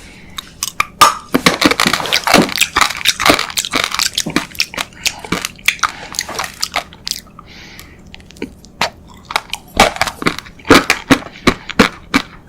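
Close-miked eating sounds: biting and chewing a dessert, with many quick sharp clicks, densest in the first half and sparser near the end.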